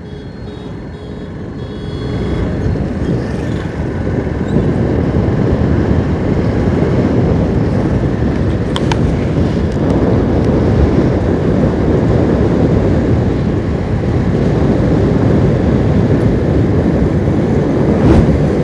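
A motorcycle on the move, heard from the rider's position: its engine running under a steady rush of wind noise on the microphone, which grows louder about two seconds in as the bike picks up speed.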